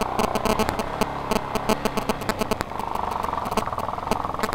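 Motorcycle running on a rough off-road track, its engine a steady rapid pulsing that grows stronger about two-thirds of the way in, with frequent sharp knocks and rattles from the ride.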